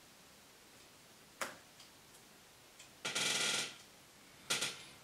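Handling noise from a disassembled MacBook Pro's metal parts: a click about a second and a half in, a short scraping rattle a little after three seconds, and a sharp click with a brief rattle near the end.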